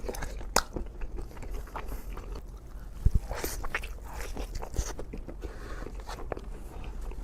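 Close-miked biting and chewing of a cheesy bacon burger: wet smacking and small crunches in an uneven run, with one low thump about three seconds in.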